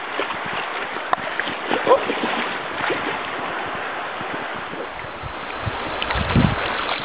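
Creek water rushing steadily, with scattered small clicks and knocks of handling, and a low buffet on the microphone about six seconds in.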